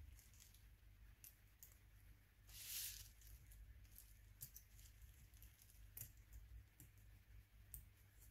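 Faint small clicks and scratches of a plastic spudger prying at a phone's tiny camera module, with a brief crinkling rustle about two and a half seconds in.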